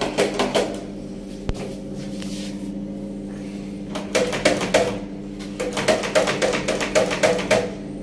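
Stainless steel lever door handle pressed down and released over and over, its latch clicking in a quick run of about three sharp clicks a second from about four seconds in, each with a short metallic ring. The handle is being tested after its stripped screw holes were repaired. A steady low hum lies underneath.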